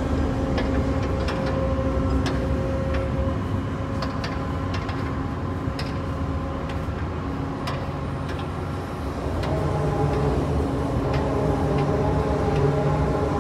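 Ship's deck crane machinery running with a steady hum of several held tones and scattered sharp clicks while the clamshell grab is worked over the hold. About nine and a half seconds in, the pitch of the hum shifts as the machinery changes speed.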